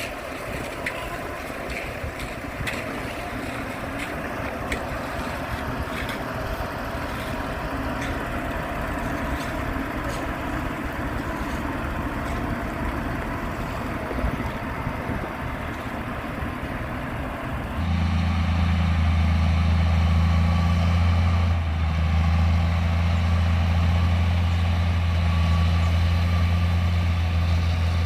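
Heavy construction machinery engines running, with occasional sharp clicks over the noise. About 18 seconds in, the sound switches abruptly to a louder, steady low engine drone.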